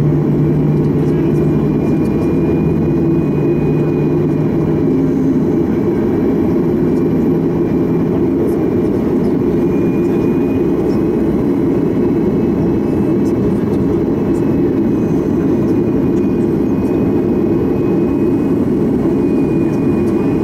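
Boeing 737 MAX 8 airliner cabin noise: the steady rush of its CFM LEAP-1B engines and airflow. A low steady hum under it fades out about eight seconds in.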